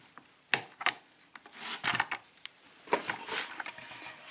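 A metal lock cylinder and hand tools being handled on a workbench: scattered sharp clicks and knocks, with a short stretch of rubbing about three seconds in.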